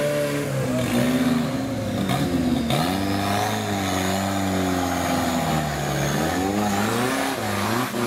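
Modified off-road 4x4's engine revving hard in repeated surges, pitch rising and falling several times as the truck claws through deep mud. A thin high whine runs through the middle of it.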